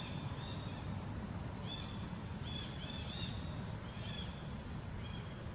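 Short high-pitched chirping calls, scattered and then four in quick succession about halfway through, over a steady low rumble.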